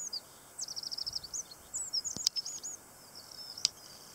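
Small songbirds twittering: quick series of thin, high-pitched chirps over a faint steady hiss, with a sharp click about two seconds in.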